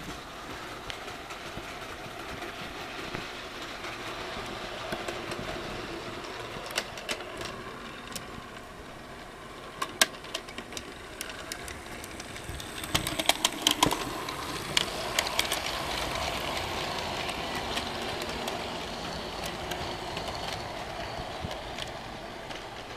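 HO-scale model steam locomotive running along the layout track: a steady motor and wheel running noise with scattered clicks from the wheels over rail joints. There is a sharp click about ten seconds in, and a cluster of louder clicks a few seconds later as the locomotive passes close.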